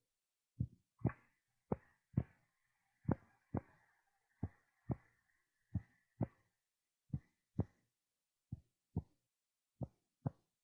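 Slow heartbeat, a lub-dub pair of soft low thumps about every one and a third seconds, eight pairs in all.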